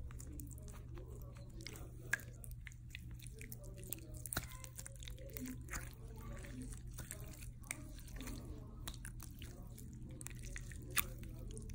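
Watery dollar-store slime being squeezed and stretched by hand, making a run of small wet clicks and squelches, with a couple of sharper clicks about two seconds in and near the end.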